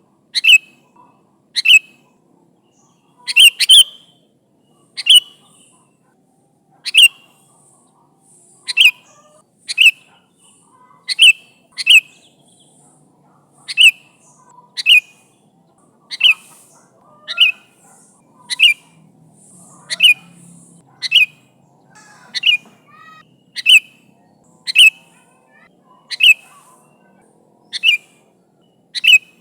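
Sooty-headed bulbul giving loud, short call notes over and over, about one every second or so, each a quick sharp note sliding downward. This is the bird's ringing call to its companions, used as a lure call.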